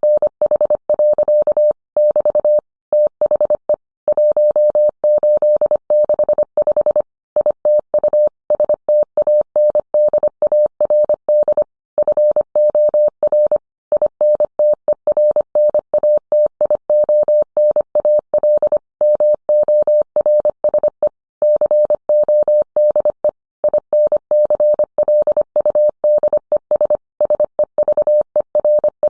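Morse code played as a single steady beep, keyed on and off in short and long elements (dits and dahs), with longer pauses between letters and words.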